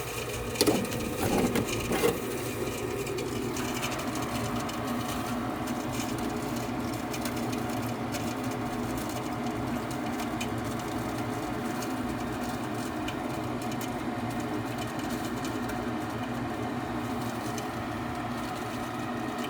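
A 90% condensing gas furnace running, its motors giving a steady, even hum, with a few knocks in the first couple of seconds.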